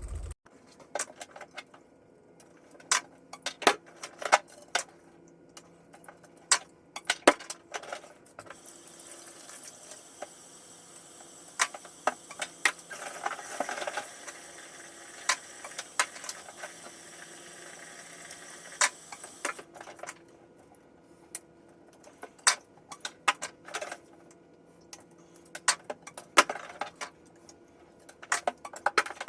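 Small plastic and metal standpipe parts and springs being handled, with many scattered sharp clicks and clatters. A steady hiss runs through the middle stretch.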